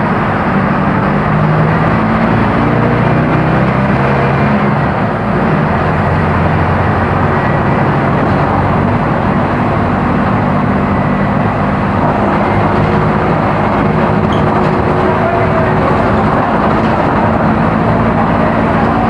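Diesel engine of a Mercedes-Benz OF-1418 bus running under way, its pitch shifting, with a brief dip in level about five seconds in.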